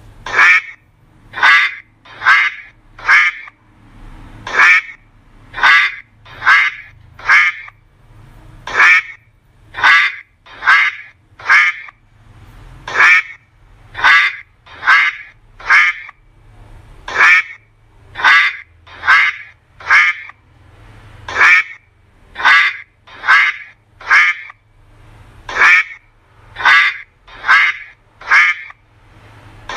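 A duck quacking loudly in runs of about four quacks, each run repeating every four seconds or so.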